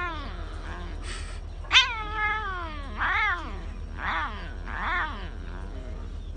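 Cat meowing about five times, roughly a second apart, each call rising then falling in pitch. The second meow is the loudest and trails off in a long falling tail.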